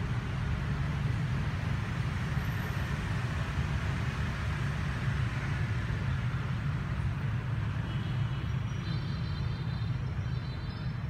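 Steady low rumble of motor traffic, with a few faint high tones near the end.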